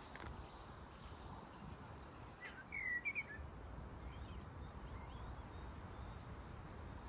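Outdoor background noise with a steady low rumble, and a small bird chirping a few short notes about three seconds in.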